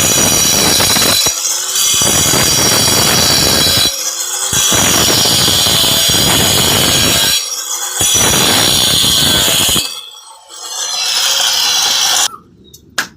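Handheld electric marble cutter running under load, its blade cutting with a loud, steady whine. The cut eases off briefly three times, and the cutter stops about ten seconds in. A few clicks follow near the end.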